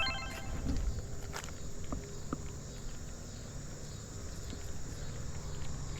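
Insects trilling steadily in one continuous high-pitched note, over low rustling and handling noise.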